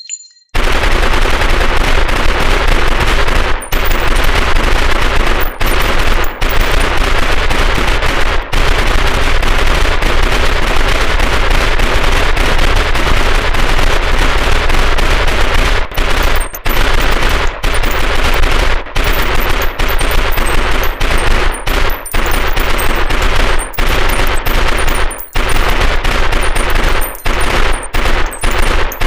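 Owen 9 mm submachine gun firing full auto in long, rapid bursts, starting about half a second in and broken by brief pauses every few seconds.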